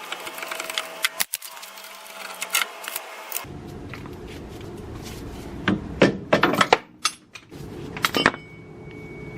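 Irregular metallic clicks and clanks of hand tools working a C-clamp ball joint press on a Jeep Cherokee steering knuckle, pressing out the upper ball joint. The loudest clusters of knocks come about 6 and 8 seconds in.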